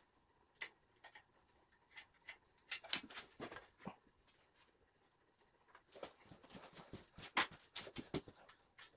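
Faint scattered taps, scrapes and clicks as rusty square steel tubing is handled and marked with a gloved hand, the sharpest tap about seven seconds in, over a steady faint high hiss.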